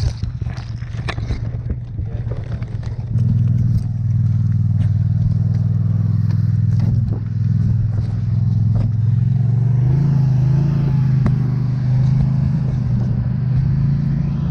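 Scattered clattering knocks, then about three seconds in an engine starts running with a steady low drone that holds to the end, stepping up slightly in pitch about ten seconds in.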